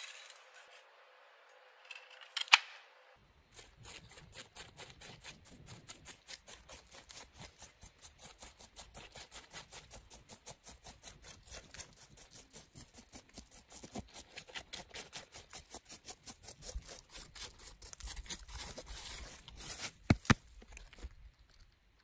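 Fingers rubbing across a ripe sunflower head, loosening the seeds: a long run of short, dry, scratchy clicks, about four or five a second, with a couple of sharper clicks near the end.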